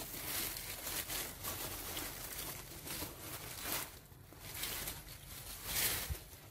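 Rustling and crinkling of dry, papery pumpkin leaves and stems being brushed, in irregular surges several times over.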